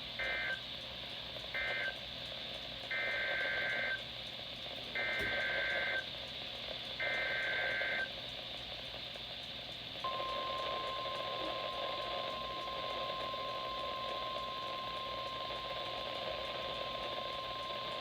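NOAA Weather Radio EAS/SAME data bursts. Two short, buzzy end-of-message bursts close off the previous warning, then three longer header bursts about a second each sound roughly two seconds apart. About ten seconds in, the steady single-pitch Warning Alarm Tone starts and runs on over radio hiss, announcing a new severe thunderstorm warning.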